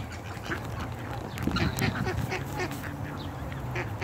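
A flock of ducks quacking and chattering, several short calls a second, over a low steady rumble.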